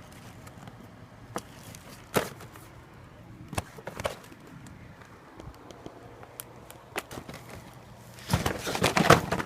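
Firework packages being handled and rummaged through: a few separate knocks of boxes being set down or bumped. Near the end comes a louder burst of clattering and rustling as things are dug through.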